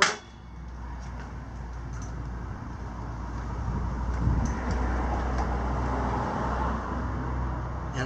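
Sur Ron Light Bee electric dirt bike rocked forward and backward against its applied front brake to check the headset for play. A click at the start, then a rough, continuous rubbing noise that grows louder from about two seconds in. The check finds some play in the tapered roller bearing headset.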